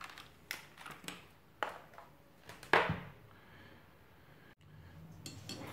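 Scattered light clicks and taps of small tools and test-meter probe leads being handled on a glass-topped workbench, the loudest knock about three seconds in.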